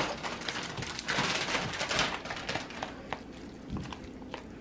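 Spoon stirring ramen noodles and chopped sausage in a plastic tub, with irregular scraping and light clicks of the spoon against the container, busier in the first half.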